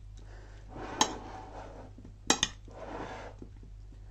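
A metal spoon stirring a yogurt-dressed fruit salad in a plate: soft, wet stirring noise in two swells, with the spoon clinking against the plate about a second in and twice in quick succession a little past two seconds.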